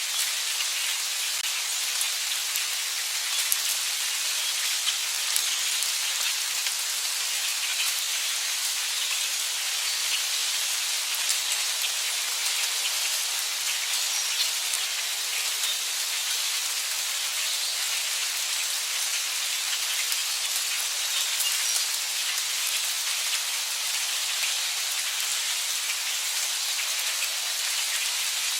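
Steady heavy rain falling, a dense even hiss with small drop ticks scattered through it.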